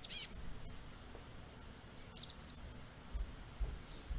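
Chestnut-backed chickadee calling: a short, high-pitched burst of rapid notes at the start and a second one about two seconds in.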